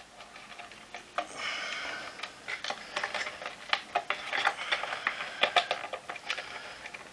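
Irregular plastic clicks, taps and light scraping as hands work at the disassembled floor head of a Vax ONEPWR Edge cordless vacuum, handling its clear plastic casing and wiring.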